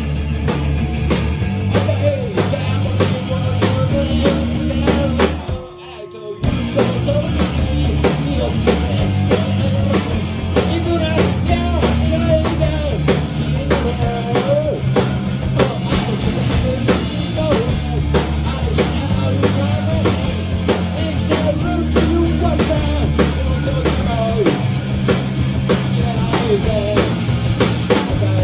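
Live rock band playing: drum kit, electric bass and hollow-body electric guitar, with a male voice singing. The band breaks off for about a second near six seconds in and comes straight back in.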